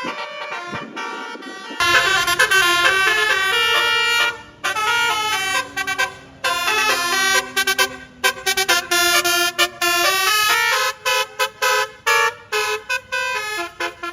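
Basuri 'telolet' multi-tone bus horn playing a quick tune of stepped notes in short blasts, loud from about two seconds in, with brief breaks between phrases.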